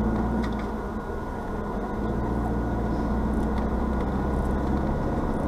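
Car engine and tyre noise heard inside the cabin while driving slowly, a steady low rumble that eases briefly about a second in.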